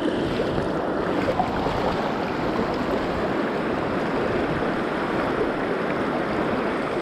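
River water flowing steadily around the wading angler, an even, unbroken rush of current.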